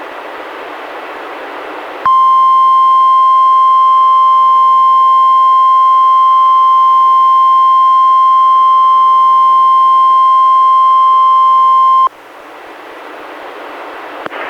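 NOAA Weather Radio 1050 Hz warning alarm tone, received on a weather radio: one loud, steady beep that starts about two seconds in and holds for about ten seconds before cutting off sharply. It is sent during the weekly test to check that alert receivers sound their alarm. Before and after it the radio gives a steady hiss.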